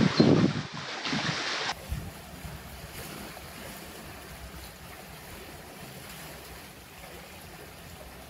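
Steady rushing noise of wind and lake waves, loud for the first couple of seconds with a few low knocks near the start. It then drops suddenly to a quieter, even hiss.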